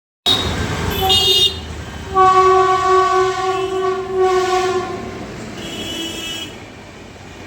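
Train locomotive horn sounding over the rumble of the train: short toots in the first second and a half, then one long steady blast of about three seconds, and a fainter, higher tone near the end.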